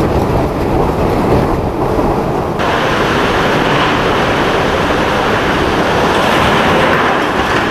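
Hurricane-force wind blowing hard as a loud, continuous rushing noise. About a third of the way in it changes abruptly to a brighter, hissier rush.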